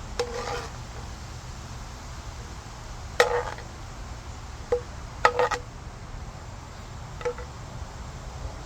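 A spoon clinking against a dish about five times, each a sharp knock with a short ring at the same pitch, while sauce is spooned over fried fish.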